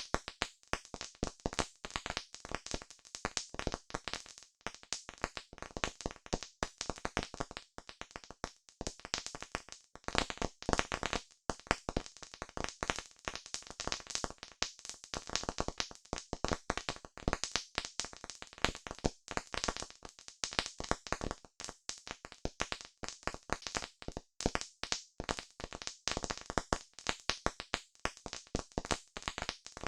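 Campfire crackling: a continuous run of sharp, irregular pops and snaps from burning wood.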